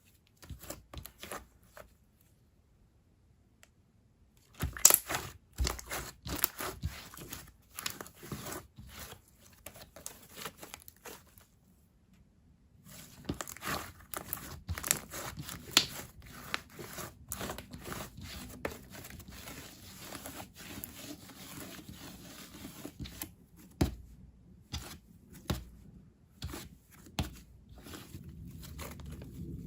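Slime being stretched, squeezed and poked by hand: a jelly slime making sticky clicking, popping and crackling sounds in quick runs, with two short pauses.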